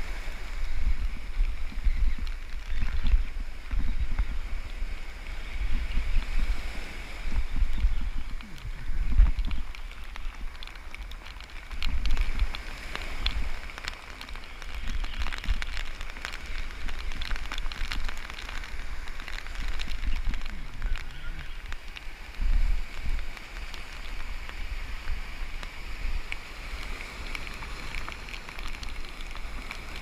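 Wind buffeting the microphone in irregular low gusts, over the steady hiss of surf breaking on the beach.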